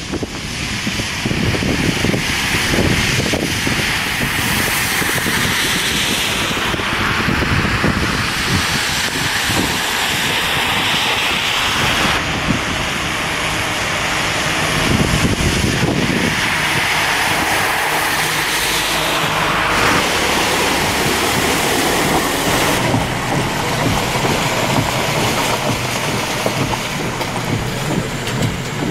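Road traffic driving through standing water on a flooded street: a steady hiss of tyres on the wet road, swelling twice as vehicles pass through the water.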